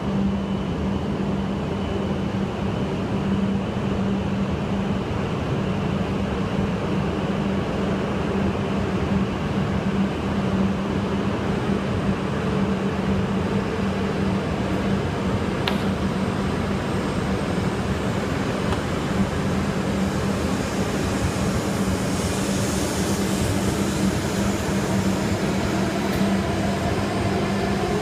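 E5-series Shinkansen pulling away from the platform and slowly gathering speed: a steady low hum from the train's running equipment, under an even rolling noise. About three-quarters of the way through a high hiss swells and fades, and a rising whine begins at the very end.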